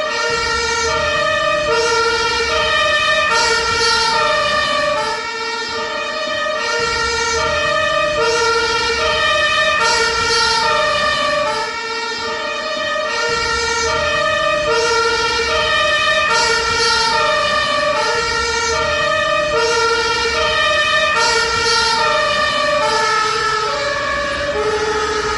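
Ambulance two-tone siren alternating evenly between a low and a high note, about one note every 0.7 s, over a low vehicle rumble and a steady high tone. It starts to fade near the end.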